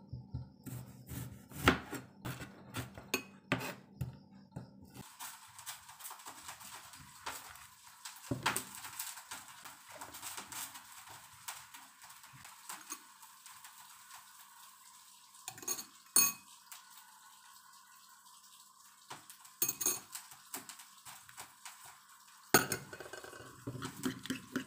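Knife chopping an onion on a cutting board for the first five seconds. Then come scattered knocks and clinks of the knife and utensils against the board and a plastic bowl. Near the end the onion is stirred into beaten egg in the bowl, with a quick run of clatter.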